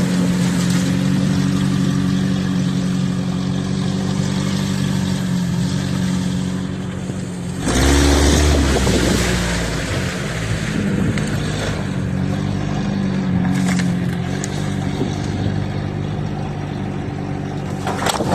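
Vehicle engine running at a steady speed while driving off-road. About eight seconds in, a louder rush of noise with a deep thump lasts a couple of seconds as the engine note dips, then the steady running resumes.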